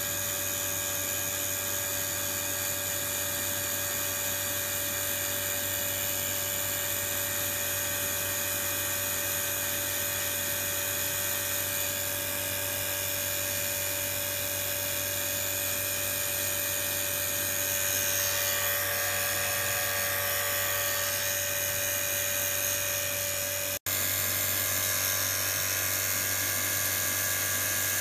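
Vacuum pump running steadily, a motor hum with a high whine, as it evacuates a bell jar over a running Bedini pulse motor. The whine shifts slightly about two-thirds of the way in, and the sound drops out for an instant near the end.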